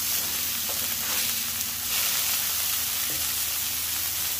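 Beef burger patties frying on a hot flat-top griddle just after being flipped, with a steady sizzle.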